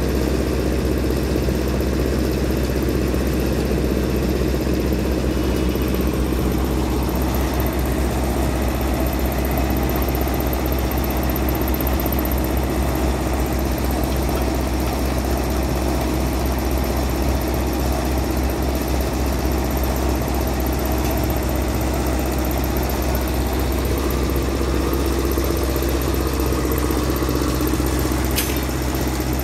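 A motor running steadily at idle, a low hum that stays even throughout.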